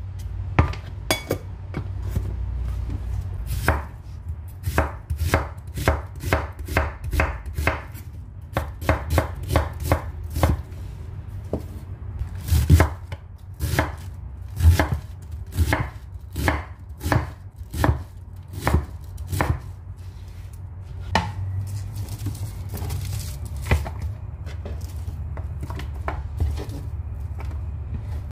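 Kitchen knife chopping onion and cabbage on a wooden cutting board: sharp knocks of the blade on the board in quick runs of a few a second, with short pauses between runs, over a steady low hum.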